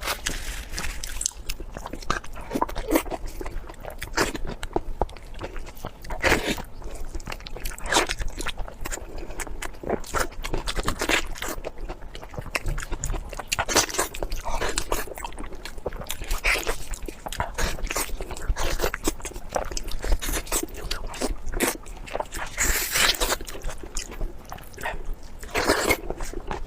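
A person biting and chewing food close to the microphone: irregular wet smacks and crunches, several a second.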